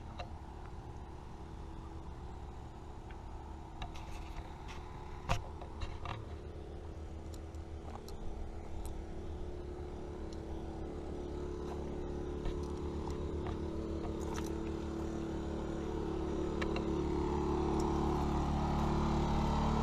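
Small Sportsman inverter generator running at a steady speed, growing steadily louder, with a few sharp clicks near the middle.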